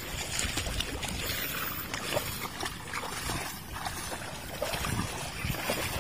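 Water sloshing and trickling, with scattered small splashes and knocks.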